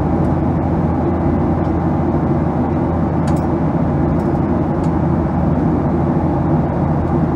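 Steady drone inside the cabin of a Boeing 737-800 in flight: its CFM56 engines and the rush of air over the fuselage, unchanging throughout.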